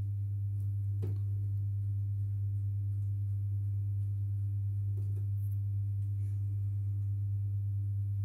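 Steady low electric hum from a fan running in the background, with two faint clicks, one about a second in and one about five seconds in.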